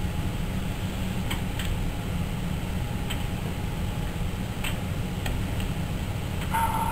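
Hand-pushed lathe tool bit in a boring bar scraping gear teeth into a steel blank: faint irregular ticks and clicks over a steady low hum, with a brief high squeal near the end. The lathe motor is not running.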